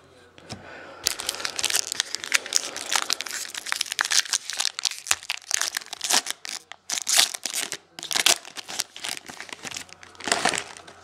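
Foil wrapper of a Topps football trading-card pack being torn open and crinkled by hand: a dense run of sharp crackles starting about a second in, with a few short pauses and a last burst near the end.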